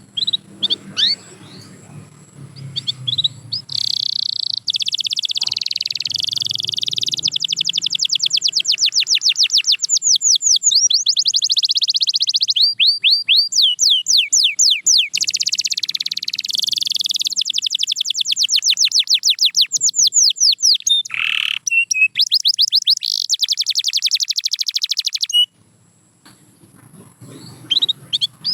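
Domestic canary singing a long song of fast, high-pitched trills: runs of rapidly repeated notes that change in speed and pitch from one tour to the next. After a few soft opening notes the song runs almost without a break for about twenty seconds, stops abruptly, then resumes faintly near the end.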